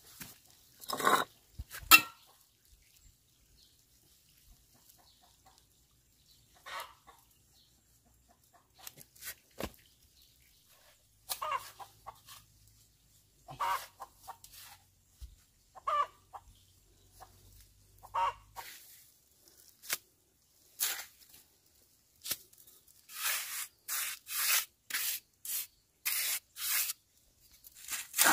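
A chicken clucking now and then in short single calls. There is a sharp knock about two seconds in, and near the end a run of rough scraping strokes, about two a second.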